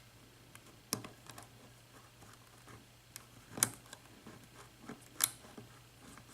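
Faint sharp clicks and light scraping of a lock pick working the pins of a 6-pin Schlage lock held in a vise, a handful of clicks a second or two apart, as the picker probes individual pins for feedback and false sets from the security pins.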